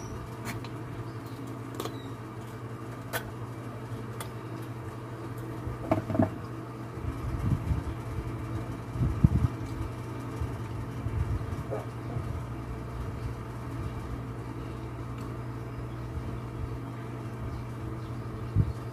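Scattered clicks, then a run of knocks and thumps, the loudest about halfway through, as metal parts and tools are handled while a grey cover is fitted onto a small gasoline engine that is not running. A steady low hum runs underneath.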